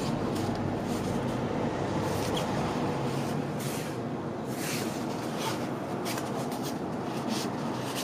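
Nylon down-jacket fabric rustling and swishing as hands rub a freshly applied nylon repair patch flat and then flex the fabric, in short scratchy swishes over a steady rushing background noise.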